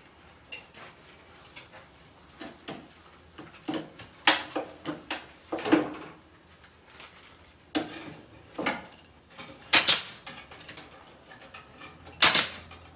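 Chicken wire clinking and rattling in irregular clicks as it is bent, twisted and worked by hand, then two loud sharp snaps near the end from a pneumatic C-ring gun clamping rings onto the wire.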